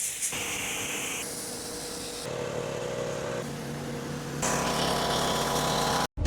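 Pressure washers running, the motor hum and hiss of the spray changing abruptly every second or two as short clips are cut together, with a brief dropout just before the end.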